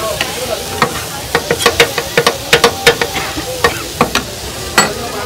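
Metal spatula clanking and scraping against a hot pan as soya egg bhurji is stirred, over a steady frying sizzle. The clanks come in a quick run through the middle, with one last sharp clank near the end, each ringing briefly.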